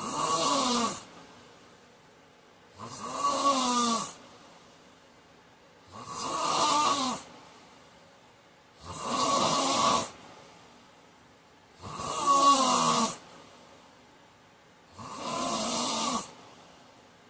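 A man snoring in his sleep: six snores, one about every three seconds, each lasting about a second, with quiet breathing gaps between them.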